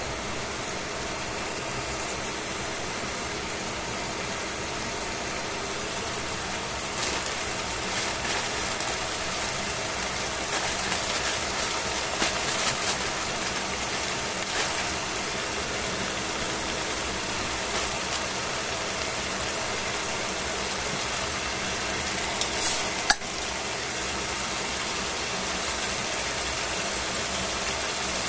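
Pork chops frying in oil in a stainless steel pan: a steady sizzle with scattered pops and crackles, and one sharp snap late on.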